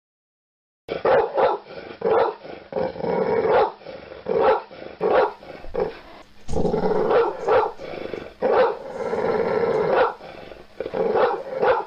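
A dog barking over and over, with growling between the barks; it starts about a second in.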